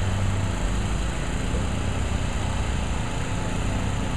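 Construction machinery engine running steadily under a constant wash of noise, its low hum dropping back about half a second in.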